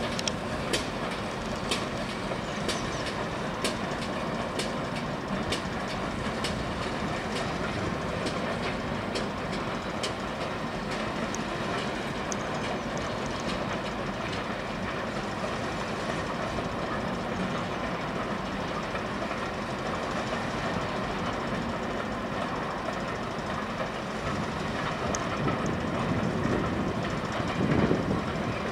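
Passenger coaches hauled by a steam tank locomotive rolling past, their wheels clicking over rail joints about once a second at first, the clicks thinning out after about ten seconds. A louder rumble swells up just before the end.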